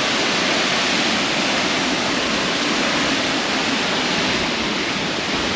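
Athirappilly Falls: a large waterfall pouring onto rocks, a loud, steady rush of falling water.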